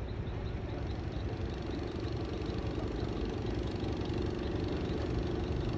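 An engine idling steadily with a rapid low chugging; a steady hum comes up in it about two seconds in.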